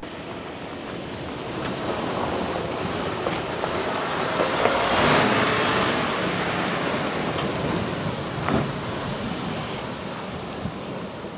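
Mercedes-Benz Arocs 8x8 diesel truck driving through a muddy water-filled track: water splashing and tyres churning mud, with the engine under it and a few knocks. It grows louder to a peak about halfway through as the truck passes close, then fades.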